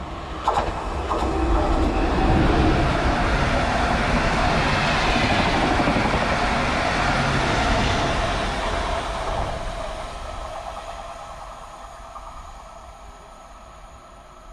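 PKP Intercity Stadler FLIRT electric multiple unit (class ED160) passing through the station without stopping. Its noise builds as it approaches, is loudest for several seconds as the cars go by, then fades away as it runs off. Two short sharp sounds come near the start.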